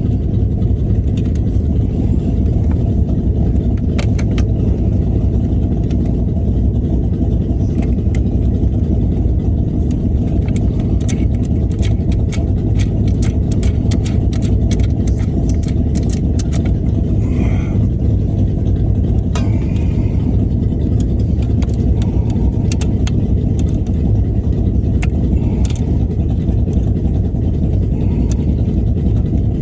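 A steady low engine-like rumble runs on unchanged, with scattered light clicks and taps over it.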